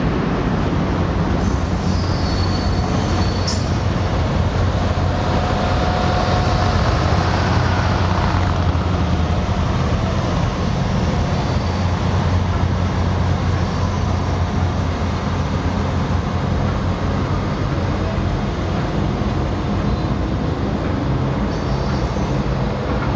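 Passenger train cars rolling past on jointed track with a steady rumble. Brief high wheel squeals come through, the clearest about two to three seconds in and shorter ones later, as the train moves away.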